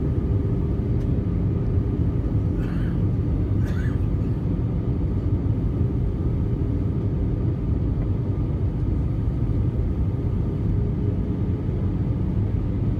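Steady low cabin roar of an Airbus A320 in flight, the engine and airflow noise heard from inside the cabin at a window seat over the wing.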